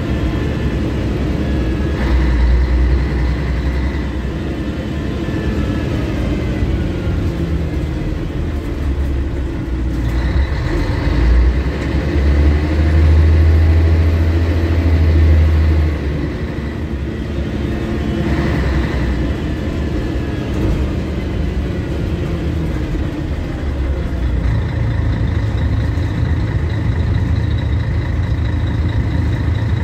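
Scania L113CRL bus's rear-mounted diesel engine running as the bus drives, heard from inside the passenger cabin with a constant low rumble. It grows louder under load from about twelve to sixteen seconds in, drops off suddenly, then settles into a steady hum near the end.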